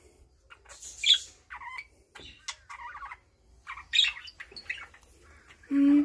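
Male budgerigars chirping and squawking in short, scattered calls, loudest about a second in and again about four seconds in.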